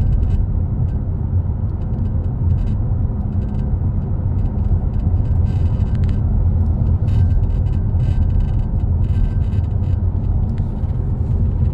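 Toyota Camry cabin sound picked up by a dash cam while driving: steady road and engine rumble with a steady buzzing sound underneath.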